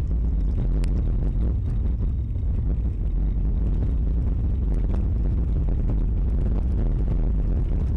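Car driving along a rough dirt track, heard from inside the cabin: a steady low rumble of engine and tyres, with a few small knocks and clicks, a sharp one about a second in.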